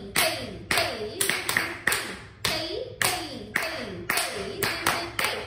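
Bare feet stamping flat on a wooden floor in Bharatanatyam Thattadavu footwork: a fast, uneven series of sharp slaps, about three a second.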